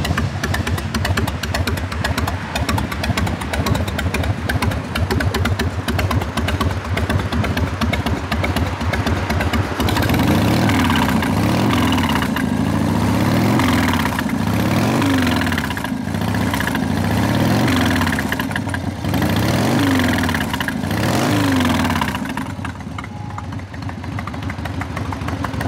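1995 Harley-Davidson Low Rider's carbureted 1340 cc Evolution V-twin idling through its stock exhaust. About ten seconds in it is revved several times, each blip rising and falling in pitch, and it settles back to idle near the end.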